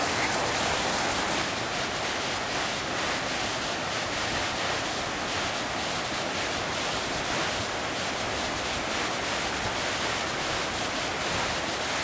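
Steady rush of river water pouring over a rocky bed of rapids, a continuous even roar.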